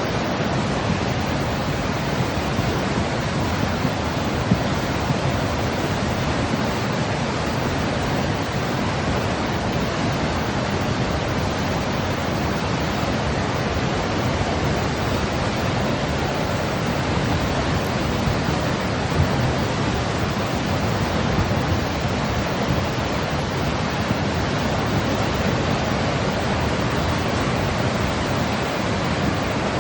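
Continuous white noise of the kind played to soothe babies: an even, unchanging hiss.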